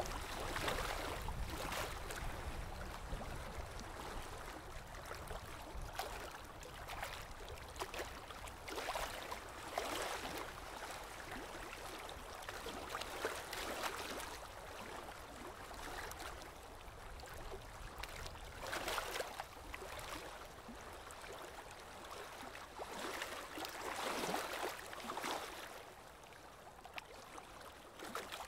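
Water running in a shallow stream, a steady rush that rises and falls irregularly.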